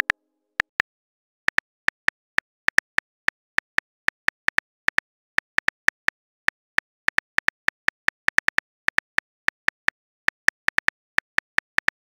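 Simulated phone-keyboard typing clicks from the TextingStory chat-story app: short, sharp clicks, about three or four a second at an uneven pace, one for each letter as a message is typed out.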